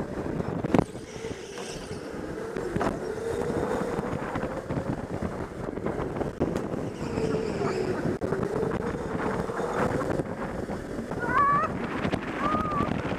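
Electric go-kart driven hard around an indoor track, heard from onboard: air rushing over the microphone and the motor's whine dipping and rising with speed through the corners. A sharp knock about a second in, and a few short squeaks near the end.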